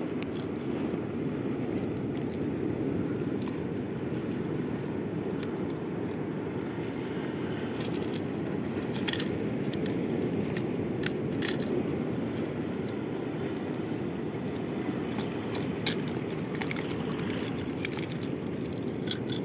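A steady low rush, with a few short sharp clicks as the popper's treble hooks are worked out of a caught trevally's mouth.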